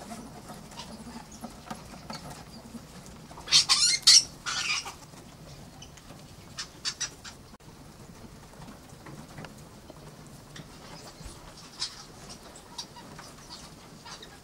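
Farmed mink moving and scratching about in wire-mesh cages with straw bedding. About three and a half seconds in there is a loud, harsh burst of noise in two parts, and a few short sharp sounds follow about three seconds later.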